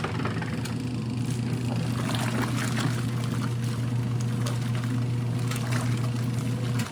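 Portable twin-tub washing machine running: a steady motor hum with water churning and splashing in the tub. It cuts in and out abruptly.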